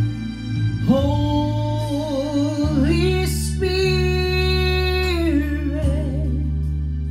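A woman singing into a handheld microphone, holding long notes with vibrato over an instrumental backing track.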